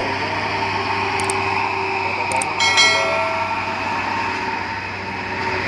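Heavy trucks' engines running steadily with a low hum and road noise. A short, ringing metallic clink comes about two and a half seconds in.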